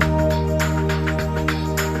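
Background music: held chords over a steady light beat.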